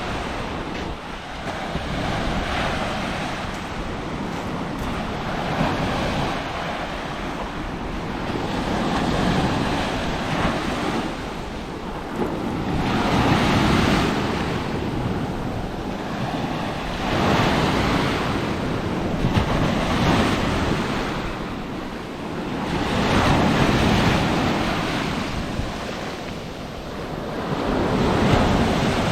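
Sea of Azov waves breaking on the shore, the surf swelling and falling away every few seconds, with wind buffeting the microphone.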